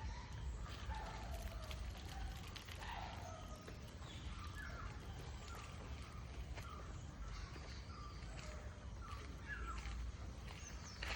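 Birds calling outdoors: many short chirps, some rising and some falling in pitch, scattered throughout over a steady low rumble.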